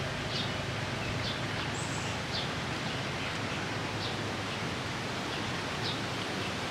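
Steady outdoor background hiss with short high chirps, likely small birds, about once a second and a brief high whistle about two seconds in.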